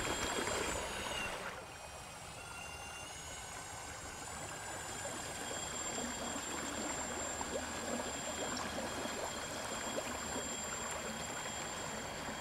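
Steady rush and lapping of water from a small motorized kayak's wake, with a few faint, steady high tones above it.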